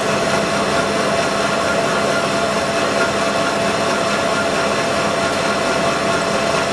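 Large lathe taking a continuous turning cut on the outside of a metal sleeve, the cutting tip peeling off hot chips with a steady singing tone over the machine's running noise. The even tone is the sign that the spinning workpiece is running balanced.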